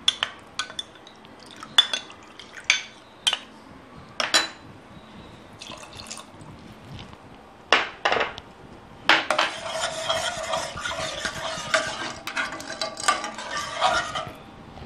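A metal spoon clinking against a saucepan a few times, then from about nine seconds in, several seconds of steady stirring and scraping through thick reduced milk as cornflour slurry is worked in.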